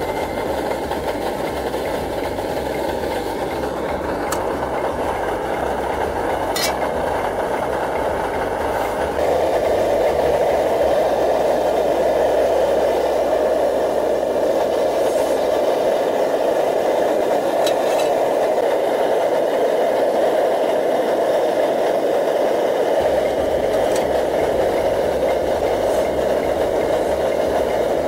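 MSR DragonFly gasoline camp stove burning under a pot, a steady rushing noise that gets louder about nine seconds in. A few faint clicks sound over it.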